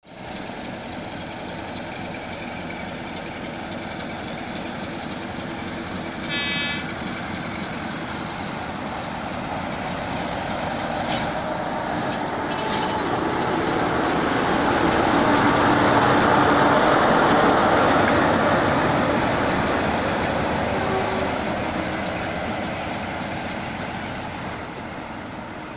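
Class 47 diesel-electric locomotive's Sulzer twelve-cylinder engine running as it draws slowly past with its coaches, growing louder to a peak as the locomotive goes by and fading as the coaches follow. A brief toot about six seconds in.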